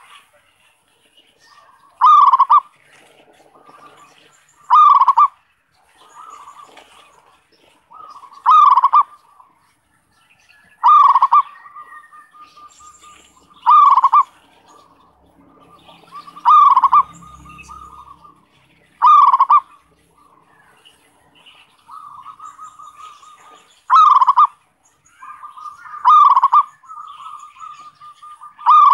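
Zebra doves (perkutut) cooing: a loud, clear coo about every two to three seconds, with softer, longer trilling coos between them. This is a lure call (suara pikat), played to draw wild zebra doves in and set them calling.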